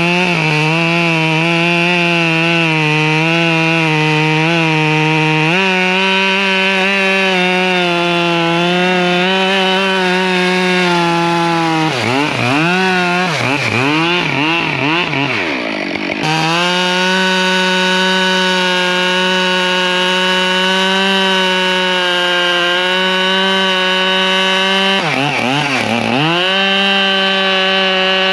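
Husqvarna 572 XP two-stroke chainsaw running hard, cutting through a large ash log. Its engine note steps up about five seconds in. It drops and climbs back several times around the middle, and once more near the end.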